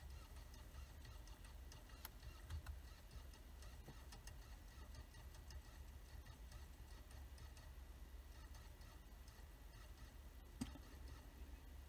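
Near silence: a faint low rumble with a few faint ticks and one sharper click near the end.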